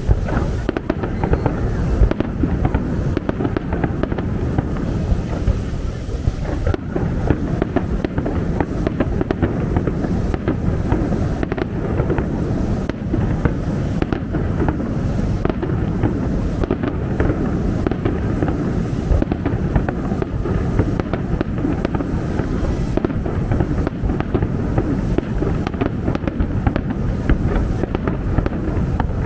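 Aerial fireworks display: shells bursting one after another in a dense, continuous barrage of bangs over a steady low rumble, with no pause.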